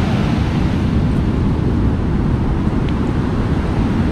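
Heavy ocean surf on a strong rising tide breaking and washing up the beach, with wind buffeting the microphone: a steady, deep rush of noise.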